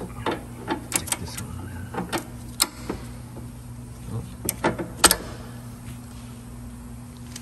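Irregular metallic clicks and knocks of a vise grip clamped on a sway bar end link pin, the link being worked back and forth by hand, with no squeak from the pin. A low steady hum runs underneath.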